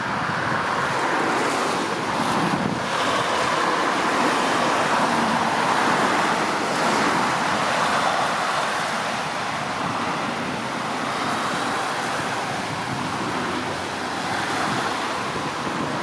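Tractor and its reel gang mower cutting grass at a distance, heard as a steady rushing drone without a clear engine note, mixed with wind on the microphone.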